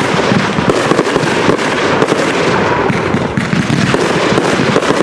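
Consumer fireworks going off in a dense, continuous barrage of rapid crackles and bangs, with no break.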